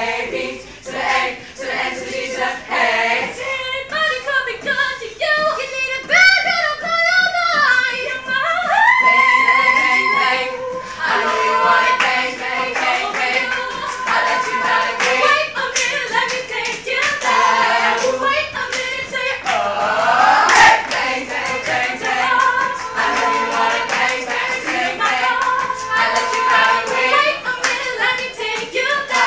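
A cappella vocal group of young women and men singing in harmony without instruments, with long held notes under the moving lines, and hand clapping along.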